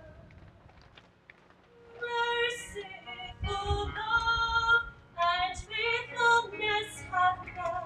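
A woman cantor singing the responsorial psalm, with electric keyboard accompaniment. After a soft held note, her voice comes in about two seconds in and goes on in short phrases with brief breaths between them.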